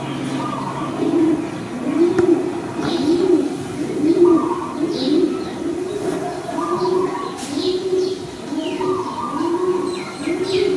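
Dove cooing in a steady repeated series, about three coos every two seconds, with small birds chirping now and then.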